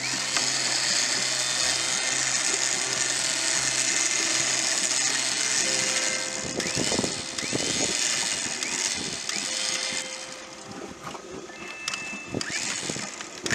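Electric winch on the 4x4's front bumper running under power, working its cable. It runs loud and steady for about six seconds, then more unevenly with short sweeps in pitch, and drops lower near the end.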